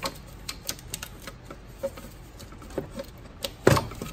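Thermostat housing on a Ford 4.0L engine being twisted and worked free among hoses and wiring: scattered light clicks and knocks of hard parts bumping, with a louder clatter near the end.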